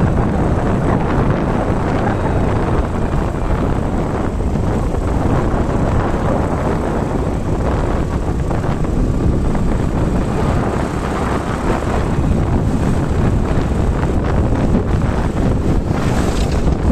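Heavy wind buffeting the microphone over the steady noise of a vehicle moving along the road. Near the end a pickup jeep passes close by.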